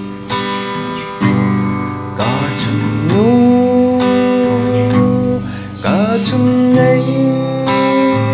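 Background song with strummed acoustic guitar, carrying long held melody notes that slide up into pitch about three seconds and six seconds in.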